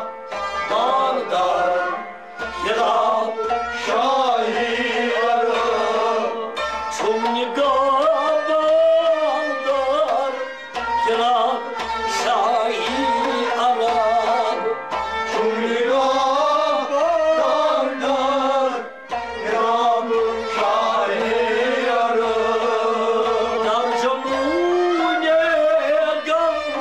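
Kashmiri folk ensemble playing: harmonium and bowed sarangi carry a winding, ornamented melody over plucked rabab and a steady drum beat on the tumbaknari goblet drum, a little over one beat a second.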